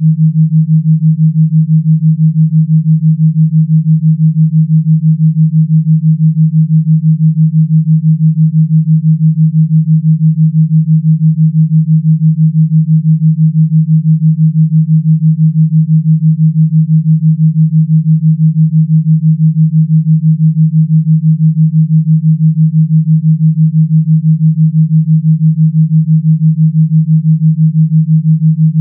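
Electronically generated pure tone, low and steady, pulsing rapidly in loudness throughout. The pulsing is the track's 33 Hz gamma-tone beat, meant for brainwave entrainment.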